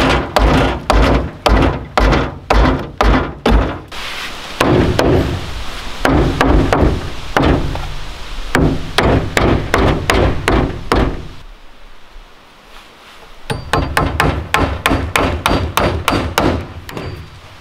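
A hammer nailing wooden slats onto a woodshed front: blows about twice a second, then a faster run, a pause of about two seconds past the middle, and rapid hammering of about four blows a second near the end.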